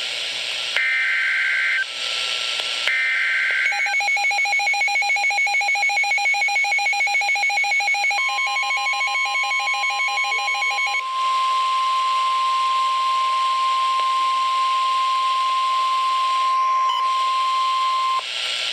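NOAA Weather Radio alert tones over radio hiss: two short warbling digital SAME header bursts about a second apart, then rapid electronic alarm beeping from the weather radio receiver. About eight seconds in, the long steady attention tone begins and holds for about ten seconds before cutting off, announcing a warning.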